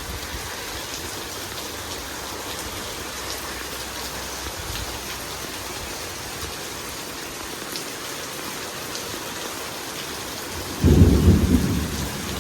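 Heavy thunderstorm rain falling steadily, with thunder rumbling low in the first few seconds. A loud, sudden clap of thunder comes about eleven seconds in and dies away over a second or so.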